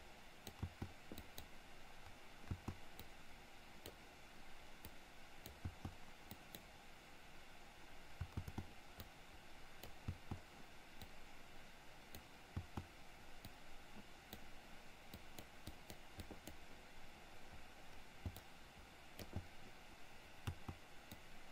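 Faint, irregular clicking of a computer mouse and keyboard over a low steady hiss.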